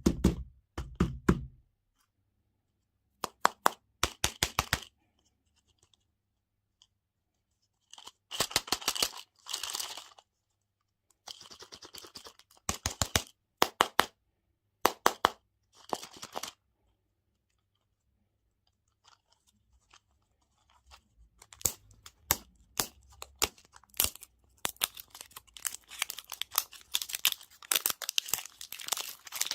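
Plastic candy and toy packaging being crinkled and torn open in short bursts of crackling, separated by silent pauses, with a longer, denser run of crinkling near the end.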